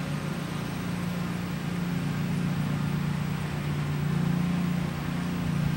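Pilatus PC-12's single PT6A turboprop engine and propeller droning on landing approach, a steady low drone that swells slightly about four seconds in.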